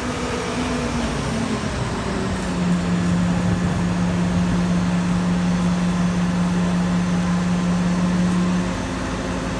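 Heavy machinery running: a broad mechanical rumble with a steady low hum that comes in about two and a half seconds in and drops away shortly before the end.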